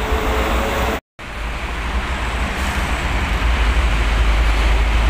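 Heavy toll-road traffic: a steady rumble of trucks and buses passing close by. The sound breaks off for an instant about a second in.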